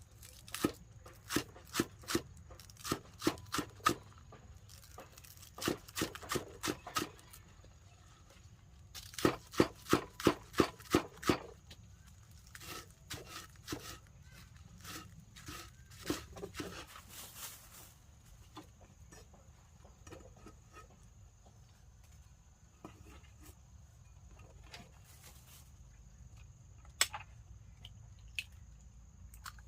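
Repeated sharp knocks in bursts of about two to three strikes a second, as in chopping or pounding during food preparation. The loudest and fastest run comes about ten seconds in, and lighter scattered taps follow.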